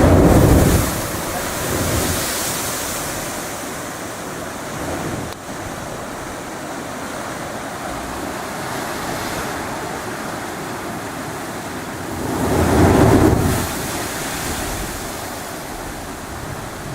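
Sea surging through the La Bufadora marine blowhole: two loud rushing bursts of water, one at the start and another about twelve seconds later, over steady surf, with wind on the microphone.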